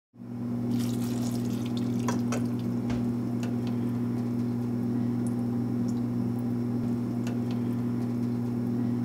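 Water poured from a plastic jug into a glass measuring cup and from the cup into a saucepan, with light clinks of glass. A steady low hum runs under it.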